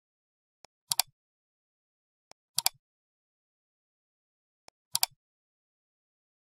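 Computer mouse clicking three times, about two seconds apart. Each time there is a faint tick and then a sharp double click.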